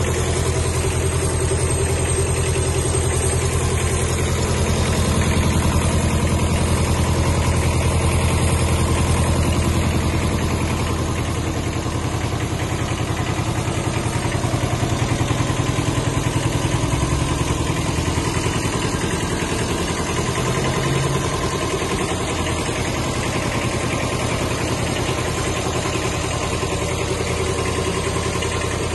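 Kubota B5001 mini tractor's two-cylinder water-cooled diesel engine idling steadily.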